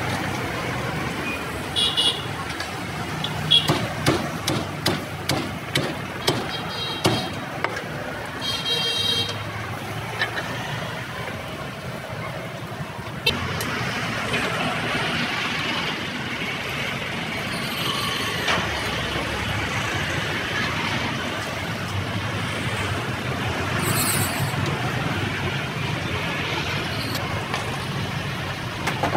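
A cleaver chops roast meat on a thick wooden chopping block, about a dozen sharp separate chops over the first dozen seconds. After that comes a steady wash of street traffic, with vehicles and motorbikes going past.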